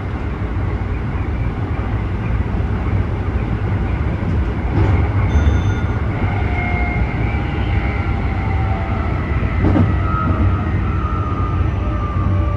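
Keikyu 1000 series electric train running, with the steady rumble of wheels on rail. From about halfway through, a traction-motor whine of several drifting tones rises over it: the loud, abnormal motor noise this set is known for.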